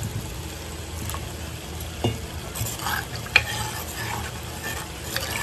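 Steel ladle stirring sambar in a clay pot, knocking against the pot a couple of times, over a steady hiss.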